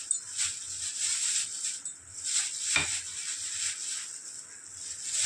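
Light, irregular scrapes and taps of a spoon working in flour as maida is added to a bowl of potato strips, over a steady high hiss.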